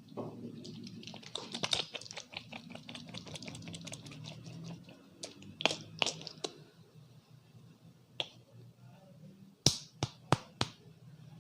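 Barber's hands at work in a head massage: a quick run of light, rapid taps, then a few louder separate clicks, ending with four sharp snaps about a third of a second apart.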